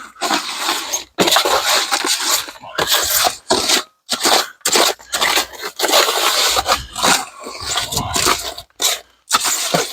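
Concrete mix being worked in a container: repeated gritty scraping and crunching strokes, broken by several short pauses.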